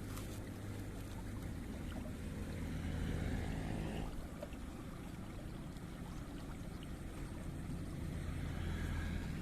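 A small engine running steadily, swelling louder about three seconds in and again near the end.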